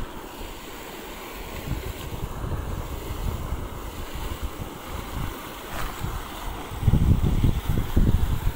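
Wind buffeting the microphone in uneven gusts, a low rumble that grows stronger near the end.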